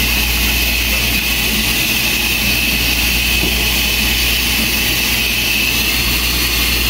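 Steady rushing drone of a kitchen exhaust fan running over the stove, with a low hum underneath and a faint high whine on top.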